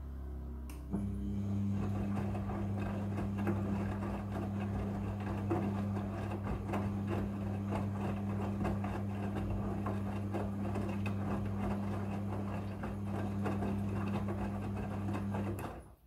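Midea front-loading washing machine's drum motor running with a steady hum as it turns the drum, the load of clothes tumbling inside with a rustle and scattered clicks. The motor starts about a second in and stops just before the end.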